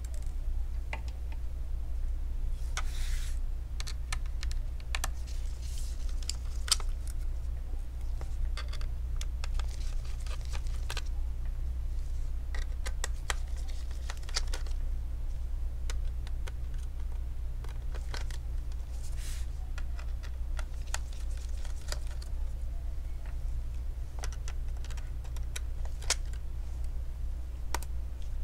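Scattered small clicks, taps and brief scrapes of a Torx T5 precision screwdriver and tiny screws against a laptop's metal bottom cover as the screws are taken out, over a steady low hum.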